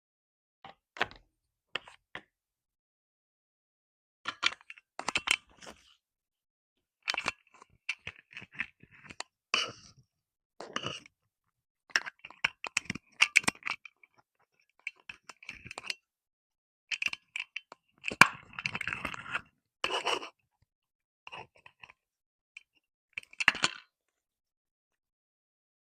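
Slime jars being handled and set down on a wooden surface: irregular clicks, clinks and scrapes in short clusters, with silent gaps between them.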